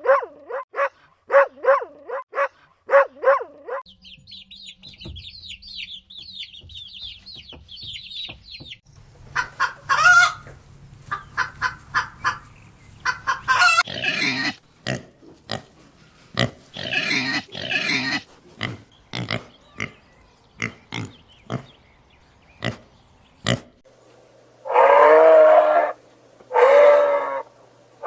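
A run of different animal calls one after another: short repeated yelps, then fast high chirping, then a long stretch of chickens clucking, and two long calls near the end.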